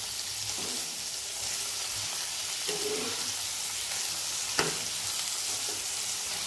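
Prawns and chopped garlic sizzling in hot oil and butter in a frying pan on high flame, stirred with a metal spoon that scrapes and clicks against the pan a few times, with one sharper knock about four and a half seconds in.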